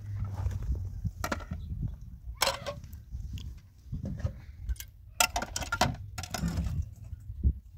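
Plastic plates and bowls being washed by hand in a metal basin: irregular knocks and clatters as the dishes are picked up, set down and scrubbed, over a steady low rumble.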